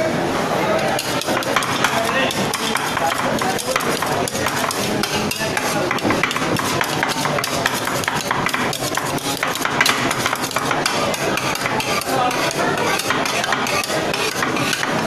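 Metal spatulas rapidly tapping, chopping and scraping ice cream on the steel cold plate of an ice-cream crusher counter: a quick, uneven clatter of many small clicks.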